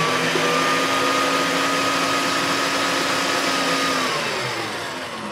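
Electric stand mixer running fast with a steady motor whine, its whisk beating eggs into creamed butter and sugar for cake batter. About four seconds in it is switched off and winds down, its whine falling in pitch as it fades.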